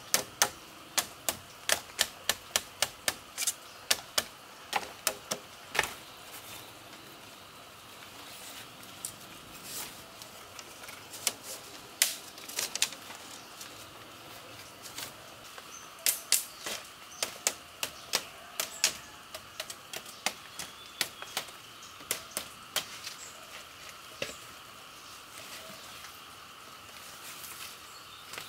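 A run of sharp knocks or taps, about three a second, which stops about six seconds in and then comes back in irregular bunches later on.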